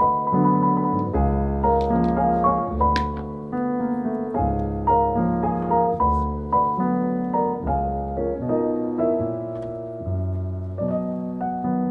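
Soft background piano music playing a gentle, steadily moving chord pattern. There are a couple of light clicks about two and three seconds in.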